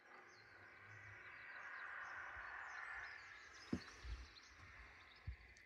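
Faint birdsong, many small chirps, over a soft steady outdoor hiss that swells and eases over the first few seconds. A few soft low thumps in the second half.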